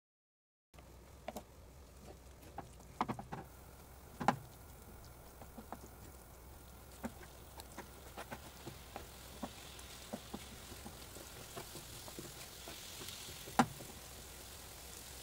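Wooden spatula stirring thick chickpea ragda in a black pan, with scattered knocks and taps against the pan, the loudest about three, four and thirteen and a half seconds in. The sound begins under a second in, and a faint sizzle of the simmering curry grows toward the end.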